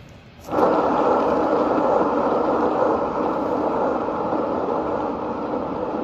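Motorized paint-pouring spinner switched on about half a second in, running with a loud, steady motor hum as it turns the poured canvas board.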